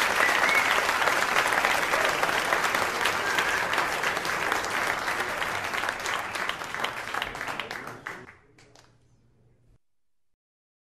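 Live club audience applauding, with some voices in the crowd, after a jazz number ends; the applause dies away about eight seconds in.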